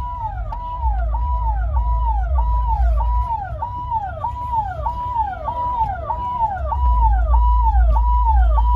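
Electronic siren sounding a repeated rise-hold-fall tone, about one and a half cycles a second, with a low rumble underneath that comes and goes.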